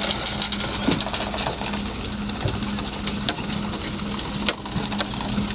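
Fishing boat under way: a steady engine hum with water noise along the hull and scattered clicks and knocks from gear on deck.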